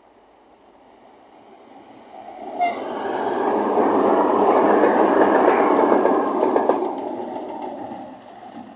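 A diesel train passes close by. The sound swells, peaks and fades away, with wheels clattering over the rail joints as it goes by. A short sharp tone sounds about two and a half seconds in.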